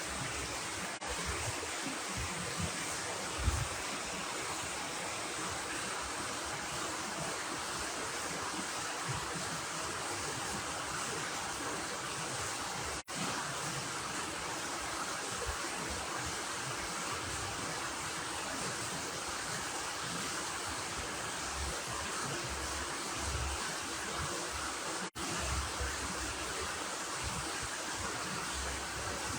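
Strong wind blowing, a steady rushing noise with irregular low rumbles from gusts hitting the microphone.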